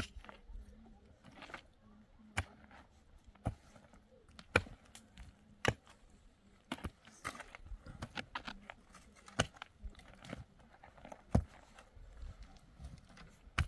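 Shovels and a hoe digging into dry dirt: irregular strikes and scrapes of metal blades into earth, about one a second.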